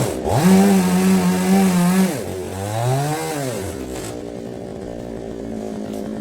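Two-stroke chainsaw engine revved up and held high twice, dropping back between, then settling to a steady idle for the last couple of seconds.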